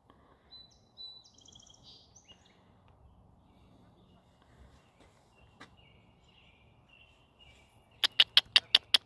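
Small birds chirping faintly in short high calls. Near the end comes a quick run of about eight sharp, loud clicks within a second.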